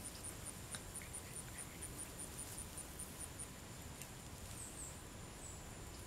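Faint, high, thin chirping outdoors, repeated steadily about four or five times a second, stopping about three and a half seconds in, then a few short falling chirps near the end. A few faint ticks sound underneath.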